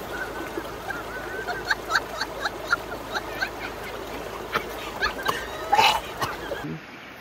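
High-pitched laughter in quick repeated bursts, with a louder whoop near the end, over the steady rush of river water.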